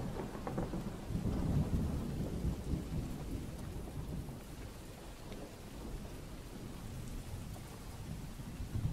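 Low, uneven rumbling background noise with a faint hiss over it, and no speech.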